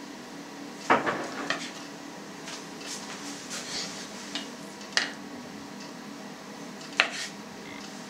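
Kitchen knife slicing peeled tomatoes on a cutting board, the blade knocking sharply on the board now and then: once about a second in, again around five seconds and near the end, with softer cuts between. A faint steady hum lies underneath.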